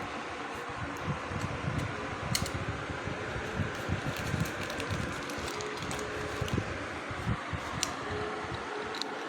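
A fan whirring steadily with a faint hum, and a few light clicks, about 2.4, 7.8 and 9 seconds in.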